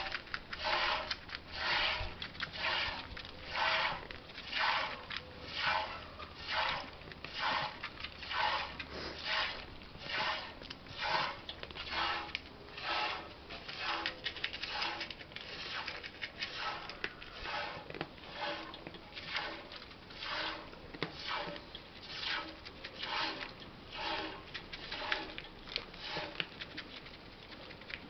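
Goat being hand-milked into a metal pot: squirts of milk hitting the milk in the pot in a steady rhythm, about one a second, each a short splashing hiss. The squirts grow softer toward the end.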